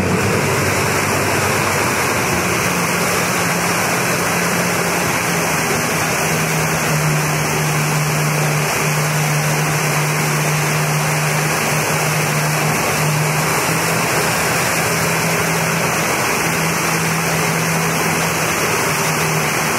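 Jet ski engine running at a steady cruising speed while towing a wakeboarder, its hum holding one even pitch, over a constant rush of churning water and spray from the wake.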